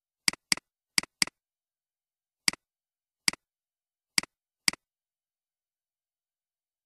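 Computer mouse button clicking eight times, each click a sharp press followed by a softer release. The first four come as two quick double-clicks, then four single clicks about a second apart.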